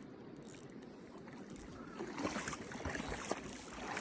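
River water running and splashing, becoming louder and choppier from about halfway through.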